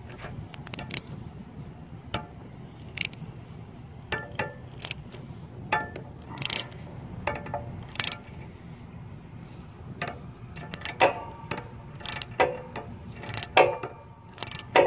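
Socket-wrench ratchet clicking, with clinks of the socket and extension against metal, as a 24 mm socket is worked on a transaxle oil filter to loosen it. The clicks come irregularly, a few ringing briefly, and come closer together in the last few seconds.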